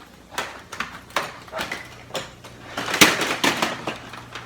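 Plastic printer parts being handled and pulled apart: irregular clicks and knocks of hard plastic, with a louder burst of clattering about three seconds in.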